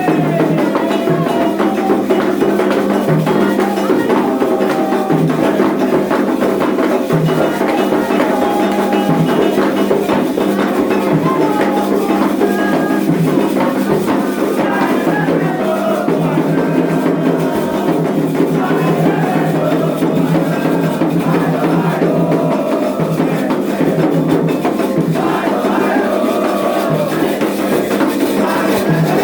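Music: singing voices over steady percussion with shakers and a dry, wood-block-like clack.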